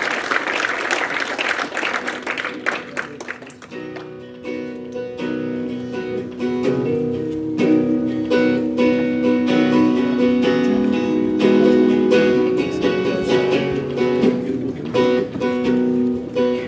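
Acoustic guitar strummed, with a brief lull about three and a half seconds in, after which a steady, ringing chord pattern starts up.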